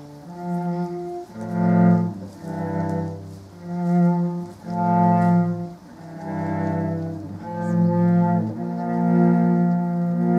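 Solo cello playing a slow string of long bowed notes, each swelling and fading.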